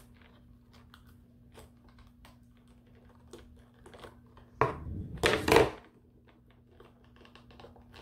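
Scissors snipping and working through a clear plastic package, with small scattered clicks and plastic crackles and a louder burst of crackling, crunching plastic about five seconds in.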